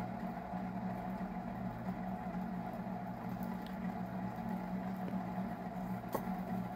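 Steady low mechanical hum in the room, with a faint click about six seconds in.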